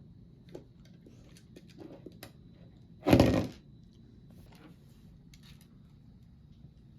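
Small plastic clicks of LEGO bricks being handled and fitted, with one loud thump about three seconds in.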